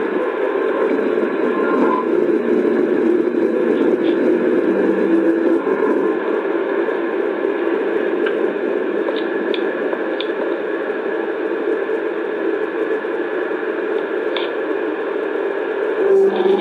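Steady low droning hum with a noisy, static-like texture and a few faint ticks, the kind of unexplained 'strange sound' recording described as the earth groaning.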